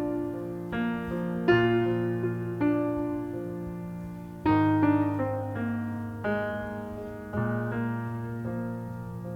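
Slow piano introduction: sustained chords struck every second or two, each left to ring and fade before the next.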